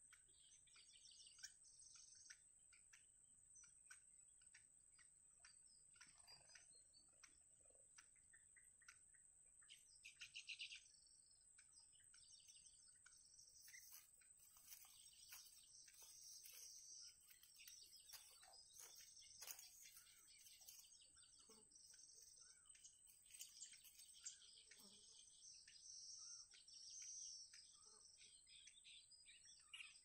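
Faint chirping and twittering of small birds, in runs of quick high calls that grow busier in the second half, with a rapid lower trill about ten seconds in. A steady high-pitched whine lies beneath.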